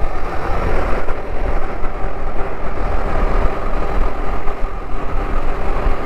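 Motorcycle on the move at road speed: a steady rush of wind and road noise on the rider's microphone, with the engine running underneath.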